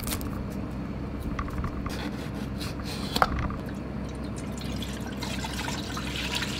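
Unsweetened soy milk poured from a carton into a deep, empty metal pot: a steady splashing stream that grows brighter as the pot fills. A few clicks near the start, and one sharp tick about three seconds in.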